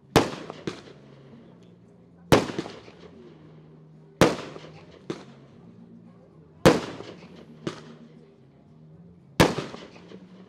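Fireworks going off: five sharp bangs about two seconds apart, each followed by a fainter bang, with a low steady hum underneath.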